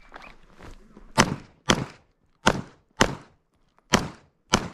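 Pistol shots on an IDPA stage: six rounds fired in three quick pairs, each pair about half a second apart, starting about a second after the start signal.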